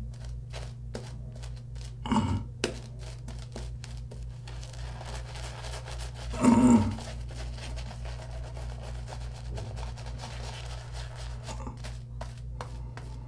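Shaving brush scrubbing Proraso Green lather onto stubbled cheeks and neck: a wet, crackling rasp of quick back-and-forth strokes over a steady low hum. Two brief louder sounds come about two and six and a half seconds in.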